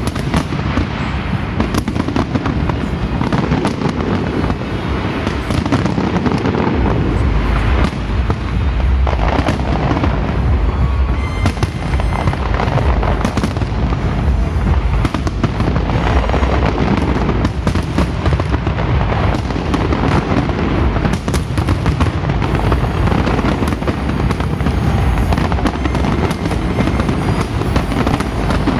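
Fireworks display with a dense, continuous barrage of bangs and crackles, with heavier low booms setting in about a quarter of the way through.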